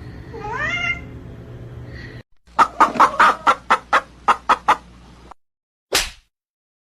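Animal calls: a short rising call, then a run of about a dozen short, sharp clucking calls, about four a second, and one more a little before the end.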